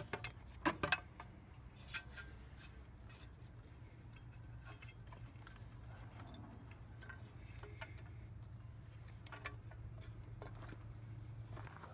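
Light clicks and knocks of hard plastic scooter panels, the drive belt cover and floorboard of a Honda Elite 250, being handled and bumped against the frame, most of them in the first two seconds and a few faint ticks later, over a faint steady low hum.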